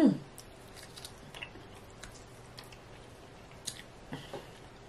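A person eating and chewing, with faint scattered mouth clicks and smacks. A brief hum-like vocal sound trails off at the very start.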